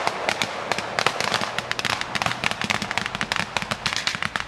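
Rapid, irregular small-arms fire of blank rounds: many sharp cracks overlapping several per second, some nearer and louder than others.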